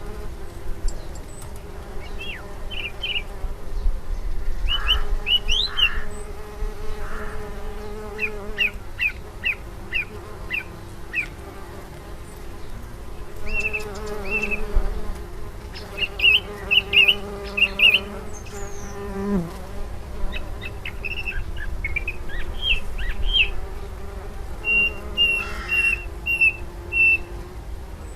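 Flying insects buzzing close by, a steady hum that wavers in pitch and dips briefly about two-thirds of the way through. A small bird chirps throughout in short runs of several quick high notes.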